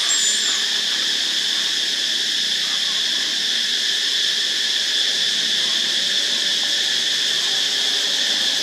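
Steady chorus of forest insects, a continuous high buzzing drone that holds an even pitch and level throughout.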